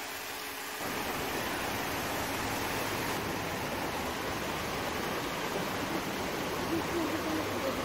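Steady rushing of running water, an even full hiss that sets in abruptly about a second in, cutting off a low steady hum.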